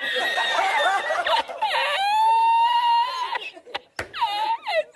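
A man laughing in long, high-pitched squealing breaths: the 'El Risitas' meme laugh. It breaks off briefly a little before the end, then starts again in shorter squeals.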